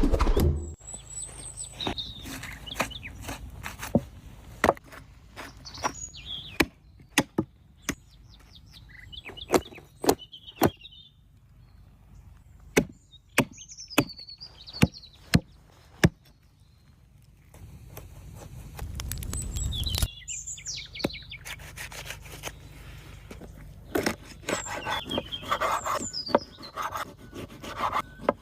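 Knife knocking on a wooden cutting board in sharp, irregular strokes during food preparation, with birds chirping. Near the end the knocks give way to denser scraping and rubbing.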